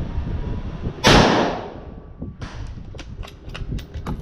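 A single shot from a Black Creek Labs Bison MRX .223 rifle about a second in, echoing and fading over about a second. It is followed by a run of light metallic clicks as the rifle's action is handled.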